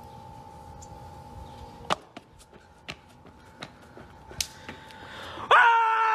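A faint steady whine, then a sharp knock about two seconds in, followed by a series of lighter clicks and knocks. Loud laughter breaks out near the end.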